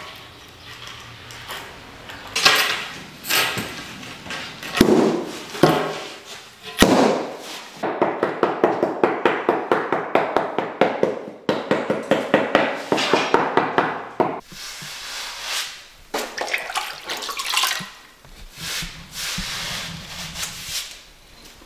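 Scattered knocks and clicks of tile work, then a rubber mallet tapping a floor tile down into its adhesive in a rapid, even series of strikes for about six seconds. After that come softer sounds of water and a wet sponge being wiped over the tiles.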